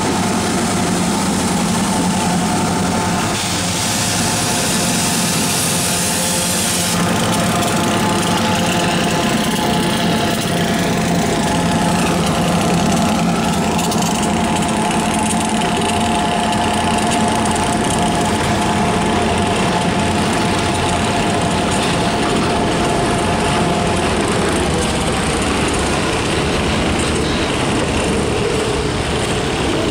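Freight train's EMD diesel locomotives running steadily, a loud engine drone with held tones over a broad rumble as the train moves.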